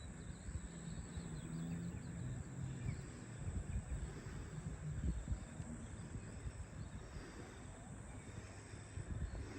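Faint outdoor ambience of steady insect chirring, with a low, uneven rumble underneath.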